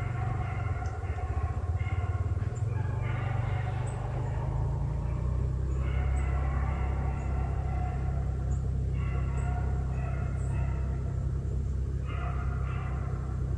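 A pack of beagles baying as they run a rabbit, with several drawn-out howls overlapping and breaking off every second or so. A steady low rumble runs underneath.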